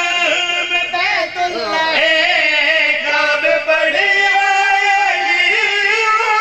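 A zakir chanting a devotional verse unaccompanied over a microphone: one man's voice in long, wavering held notes with ornamented turns.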